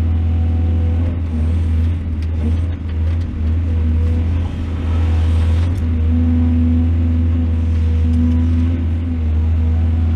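Excavator's diesel engine running steadily with a deep drone, with a few short knocks in the first half.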